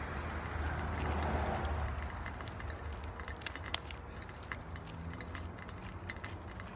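Outdoor hiss with a broad rushing swell that peaks about a second in and dies away by about three seconds in. After that come light, irregular, crunchy clicks of footsteps on pavement as someone walks.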